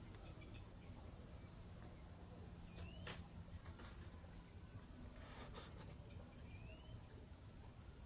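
Faint, steady, high-pitched chirring of insects in the background, with two soft clicks a few seconds apart.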